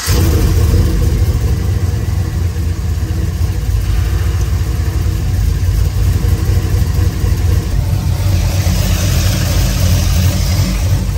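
Cammed 2006 GMC Sierra's 5.3-litre V8 running at a steady idle just after being started, on its first run after a coolant crossover pipe replacement while it is checked for leaks.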